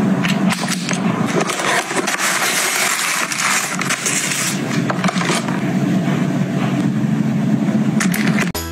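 Close crinkling and rustling of shoe packaging and tissue paper as rubber flip-flops are handled, a dense crackly noise with a steady low rumble under it. Music with clear notes comes in near the end.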